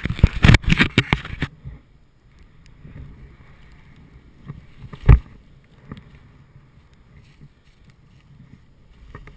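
Snowboard scraping and hissing through snow in loud uneven bursts for about a second and a half, then stopping as the rider ends up sitting in the powder. After that only faint rustling, with one sharp thump about five seconds in.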